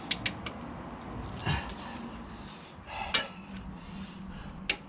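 Stainless steel brake pad abutment clip being fitted back into a front brake caliper carrier: several sharp metallic clicks and clinks, spread irregularly over a few seconds.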